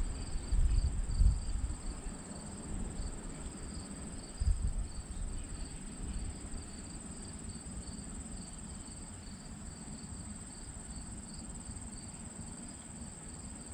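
Crickets chirping: a steady high trill with a lower, regularly pulsing chirp under it. Low rumbles and thumps in the first couple of seconds and again about four and a half seconds in.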